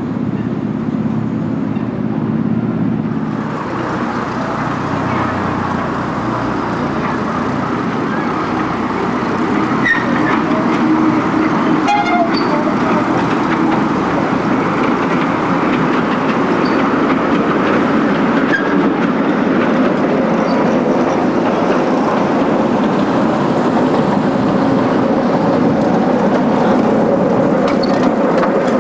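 Miniature railway locomotive running with a steady engine hum, growing a little louder about ten seconds in as the train draws near.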